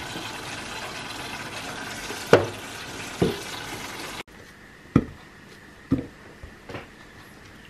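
A steady kitchen hiss with two sharp knocks. It cuts off abruptly, leaving a quieter room with soft thuds as chunks of banana are dropped into a plastic blender cup.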